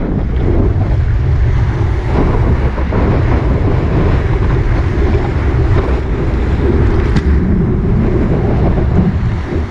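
Wind buffeting the microphone of a board-mounted action camera while whitewater rushes around a surfboard riding a breaking wave, a loud, steady rush heaviest in the low end. A single brief tap sounds about seven seconds in.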